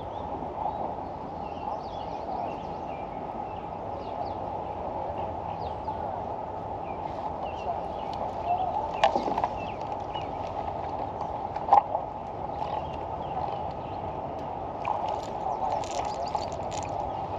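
Many birds calling and chirping at once. Two sharp knocks stand out, one about halfway through and one a few seconds later.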